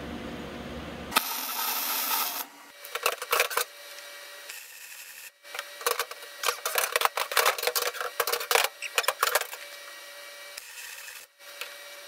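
MIG welder tack-welding a steel tube frame: a short hiss about a second in, then irregular bursts of crackling arc with short pauses between them.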